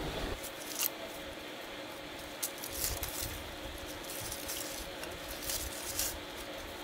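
Aluminium foil crinkling and tearing in short bursts as it is peeled off a roasted taro.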